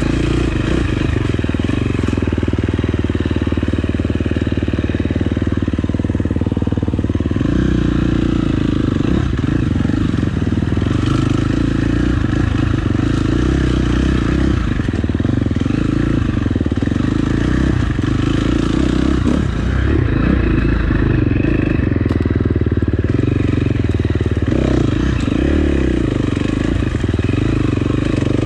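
Dirt bike engine running under way on the trail, its note steady with small rises and falls.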